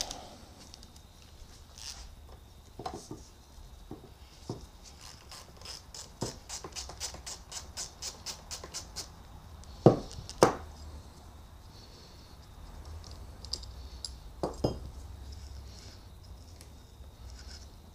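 A 3/8-inch drive ratchet with a 10 mm socket clicks quickly for a few seconds as it backs out a bolt. There are then a couple of sharp metal knocks, and another a few seconds later.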